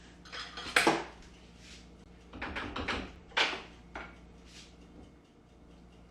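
Kitchen clatter while plating: a few short knocks and scrapes of dishes and utensils, the loudest about a second in, with a sharper knock a little past the middle.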